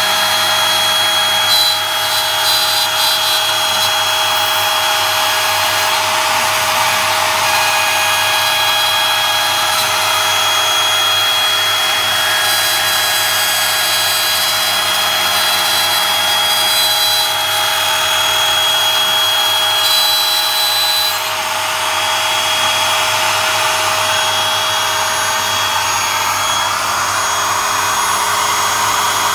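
Makita RT0700C trim router, running as a CNC spindle, milling 8 mm plywood: a steady high motor whine over the rasp of the bit cutting wood.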